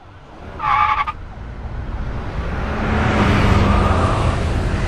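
Road traffic swelling up and passing, with a short car horn blast about half a second in.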